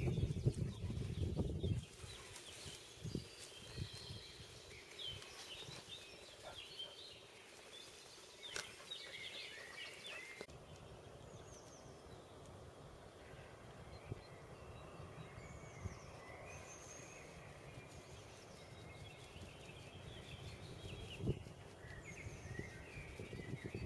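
Small birds singing and calling in short chirps and trills throughout. A low rumble of wind on the microphone covers the first two seconds.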